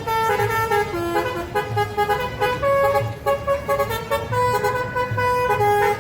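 Bus telolet horn playing a quick tune of steady, horn-like notes that step up and down in pitch without a break, over a low rumble.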